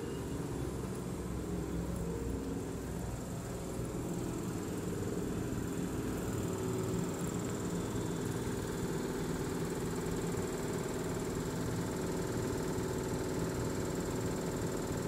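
Toyohashi Railway electric train standing at the platform, its onboard equipment giving off a steady hum of several low pitches with a faint high whine above it.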